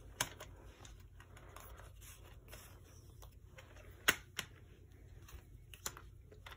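A plastic CD jewel case and its paper booklet being handled: light rustling and several sharp plastic clicks, the loudest about four seconds in as the case is closed.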